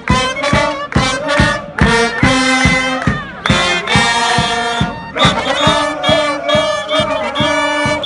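Loud, upbeat celebration music with a fast, steady beat, and a crowd of fans singing and shouting along.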